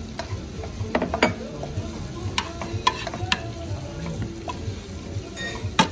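Metal spoon clinking and scraping in a small nonstick frying pan as fruit pieces are stirred in melting butter over a gas flame. There are scattered single clicks, then a quicker run of louder clinks near the end.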